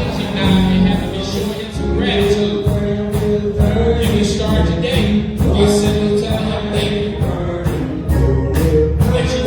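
Gospel music with singing over a steady beat.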